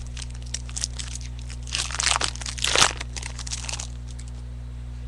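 Crinkling and crackling of a trading-card pack's wrapper being torn open and handled, with scattered light clicks; the crackle is densest about two to four seconds in. A steady low hum runs underneath.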